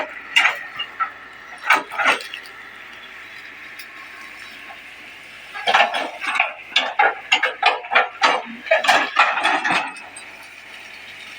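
Excavator working, with bursts of sharp clanks and knocks over a steady whine: a short cluster at the start and a longer, denser one from about halfway to near the end.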